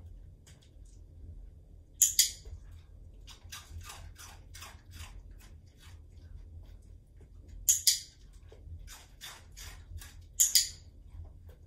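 Dog-training clicker snapping three times, each a sharp double click, marking the dog's correct pivot on the perch. Between the clicks there are runs of faint quick ticks, about three or four a second.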